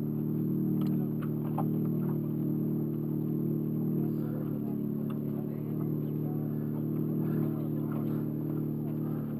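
A vehicle engine idling steadily, with a few light clicks and taps over it.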